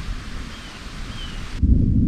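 Outdoor hiss with a couple of faint chirps. About one and a half seconds in, a deep, loud rumble of thunder begins.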